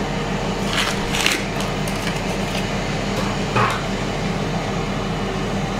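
Ninja Foodi Max multicooker running on its Air Crisp setting at 210 °C, its fan giving a steady hum. A few short noises come through it about a second in and again past three and a half seconds.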